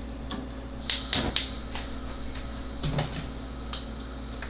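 Three quick sharp clicks about a second in, then a few lighter knocks: kitchen handling of cookware and an oil jug at a gas stove.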